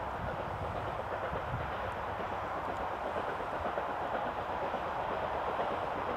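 Distant exhaust beat of BR Standard 'Britannia' Pacific 70013 Oliver Cromwell, working hard as it climbs the steep Beattock incline, heard over the steady roar of motorway traffic.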